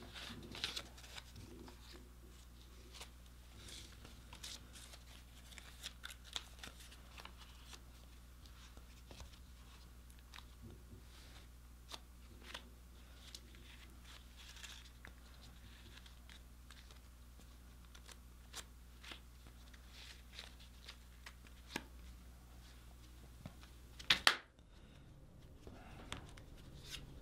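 Paper banknotes rustling and crinkling faintly as a stack of bills is folded and worked into a leather money clip wallet, with scattered light clicks from the handling and a sharper click near the end. A faint steady low hum runs underneath.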